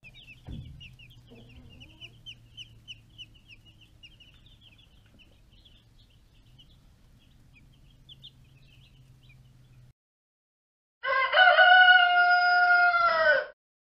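Cornish Cross chicks peeping in quick, faint chirps over a low steady hum. After a second of silence comes one loud rooster crow, held for about two and a half seconds.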